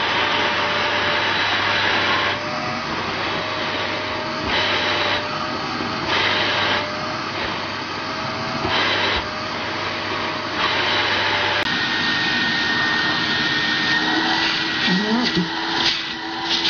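Canister vacuum cleaner running with its hose end blocked and freed by hand, so its rushing air sound brightens and dulls every second or two. About twelve seconds in it gives way to a second canister vacuum running with a steady high whine.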